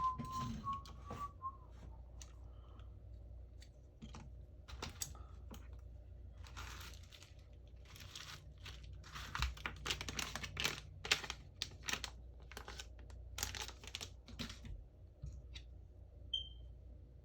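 Irregular scratchy rasps, crinkles and small clicks from hands and tools at a phone repair bench, busiest in the middle of the stretch. At the very start a thin steady whistle-like tone fades out.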